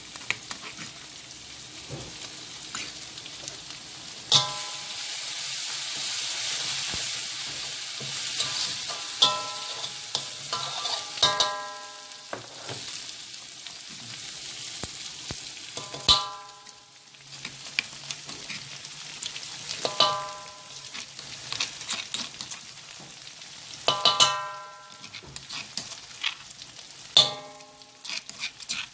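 Pounded fried mackerel and chilli-belacan paste sizzling in hot oil in a wok as it is stirred. A metal spatula strikes the wok about seven times, every few seconds, and each strike rings briefly.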